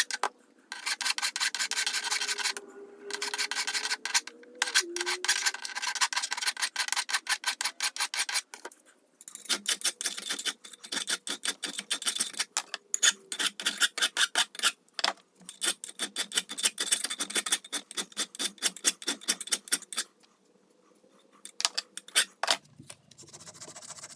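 Rapid rasping hand strokes on metal as the fresh welds on the vise's repaired base plate are cleaned up. The strokes come in runs broken by several short pauses, with a longer pause a little before the end.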